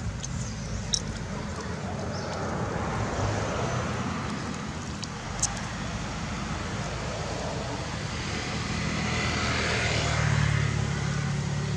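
Steady traffic noise, with a motor vehicle's engine hum swelling louder in the last few seconds as it passes. Two faint clicks sound along the way.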